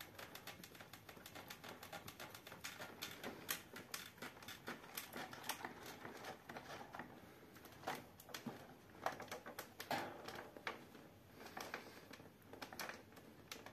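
Faint, irregular rattling and clicking as a room shakes in an earthquake, with a few duller knocks scattered through it.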